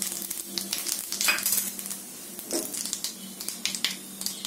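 Tadka of cumin seeds, asafoetida and red chilli powder sizzling and crackling in hot oil in a small pan, with the spices being stirred through the oil.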